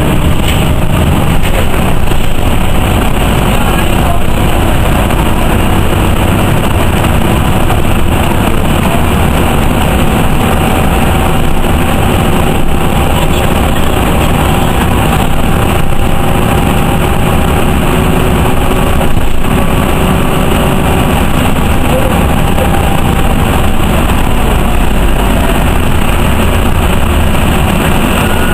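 Steady engine and road noise heard from inside a moving Nova Bus RTS city bus, with a faint whine for part of the ride.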